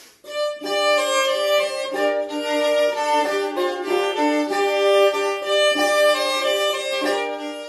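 A bowed medieval fiddle (vielle) playing a duet with a late medieval lute, the fiddle holding the melody in sustained notes. The music starts just after the beginning.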